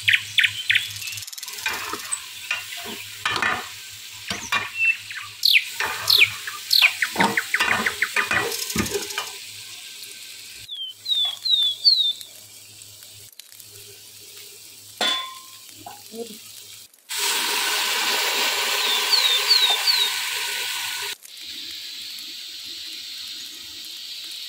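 A metal spatula knocking and scraping against a cooking pot as mutton masala is stirred and fried in oil, with a sizzle underneath. Birds chirp now and then, and near the end a steady rushing noise runs for a few seconds.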